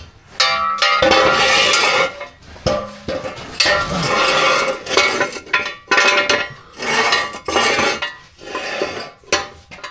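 Steel jack stands clanking and rattling as they are handled and set in place under a car: a dense series of loud, irregular metal knocks with a ringing edge.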